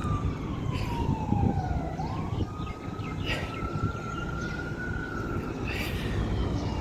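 Emergency vehicle siren wailing: one tone sliding down for about two seconds, climbing back up and holding, then starting to fall again near the end, over a steady low rumble of traffic.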